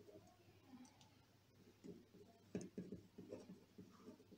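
Faint scratching of a pen writing on paper, with a few sharper clicks of the pen tip a little past the middle.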